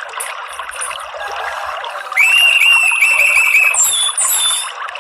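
Orange-headed thrush singing over steadily trickling water. About two seconds in, it gives a rapid string of repeated notes followed by a few high whistled notes, lasting about two and a half seconds. This is the loudest sound.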